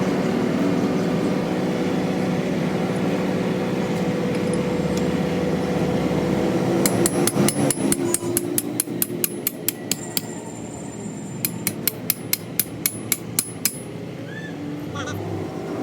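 Rapid hammer blows on metal, about five a second, in two runs separated by a short pause, the first starting about halfway in. A steady mechanical hum runs under the first half.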